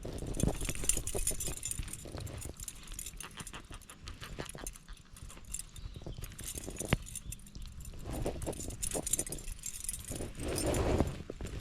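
Handling noise: irregular small clicks, rattles and rustling over a low rumble, louder about eight seconds in and again near the end.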